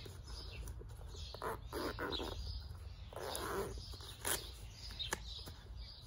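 Handling noise from digging in a life jacket's front pocket: rustling of fabric and gear, loudest about three seconds in, with a few sharp clicks. Birds chirp faintly in the background.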